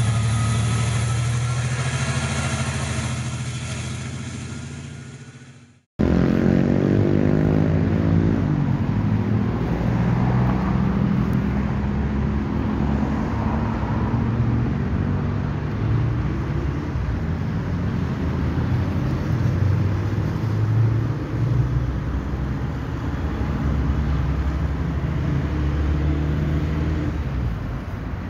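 A heavy engine running steadily, fading out over about six seconds. After an abrupt cut comes outdoor traffic noise with a steady low rumble; in the first few seconds after the cut a vehicle passes, its engine note falling.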